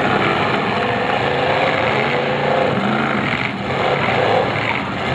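Several demolition derby cars' engines running and revving hard at once, a dense mix of engine noise with pitches rising and falling.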